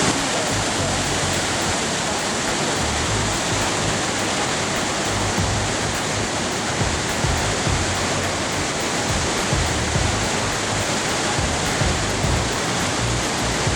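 Victoria Falls, the Zambezi River crashing down over the gorge, heard close up as a steady, even rush of falling water and spray.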